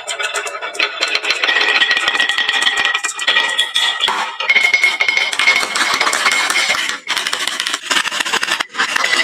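Many marbles rolling and clattering down a wooden marble-run track, a dense stream of clicks as they knock against the wood and each other, with a steady ringing rolling tone.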